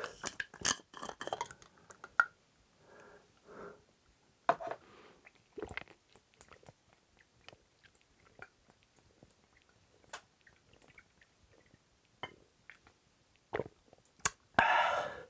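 Close-up mouth and drinking sounds: a plastic cap twisting off a small drink bottle, then scattered sips, swallows and wet mouth clicks. A loud breathy exhale comes near the end.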